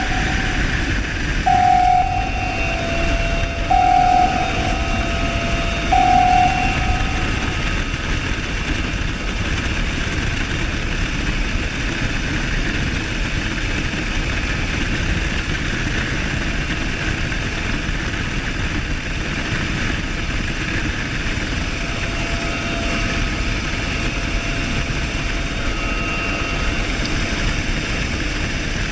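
Steady, loud mechanical drone like aircraft engine noise, unbroken throughout. A pitched tone sounds on and off four times in the first seven seconds.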